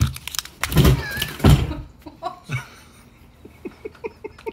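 A raw egg smacked and cracked on a person's head: two loud thuds about a second in, with a short squeal between them. Quick pulsing laughter follows near the end.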